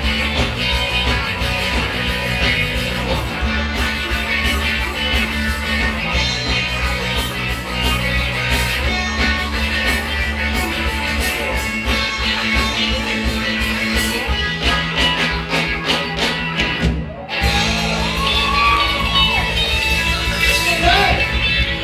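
Live rock band playing an instrumental break: an electric guitar solo over bass and drums. The sound drops out for a split second about three-quarters of the way through, then the band carries on.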